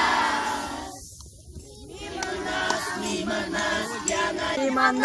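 Group of children singing a pop song together in chorus. The voices fade about a second in and pick up again a second later.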